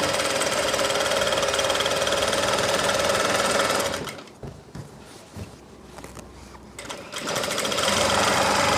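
Sewing machine stitching a narrow folded hem in cloth. It runs for about four seconds, stops for about three, then starts again near the end.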